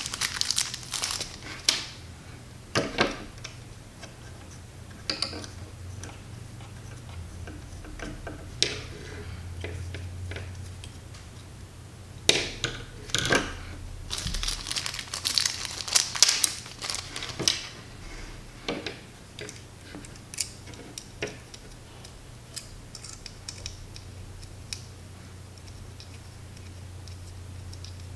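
Hand work on a carbon fibre drone frame: standoffs being fitted and threaded onto its screws, giving scattered sharp clicks and taps of small metal parts, with bursts of rustling about halfway through. A faint steady low hum runs underneath.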